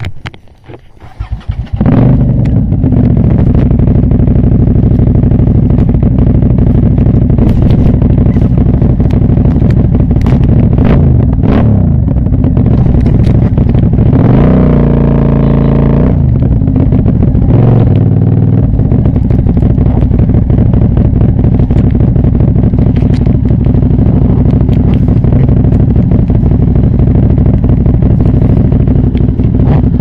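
Aprilia Shiver's V-twin engine running loud and steady from about two seconds in. Its throttle is blipped once around the middle, the pitch rising and falling back, with smaller dips in pitch just before and after.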